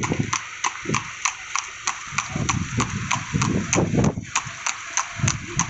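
Horse's hooves clip-clopping on an asphalt road as it pulls a cart, a steady run of sharp strikes about four to five a second, with a low rumble underneath.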